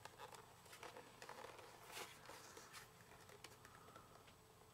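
Near silence with faint scattered clicks and rustles from a plastic jump starter case being handled and turned over.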